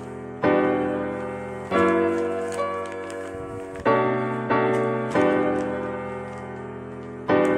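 Background piano music: slow chords, each struck and left to fade, a new one about every one and a half to two seconds.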